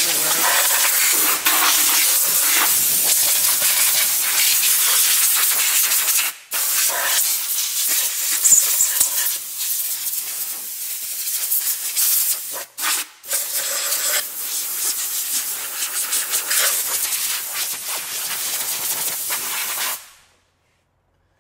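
Compressed-air blow gun on a coiled shop air hose hissing loudly as it blows grinding dust off the workpiece. It runs in long blasts with brief breaks about six seconds in and again around thirteen seconds, then cuts off near the end.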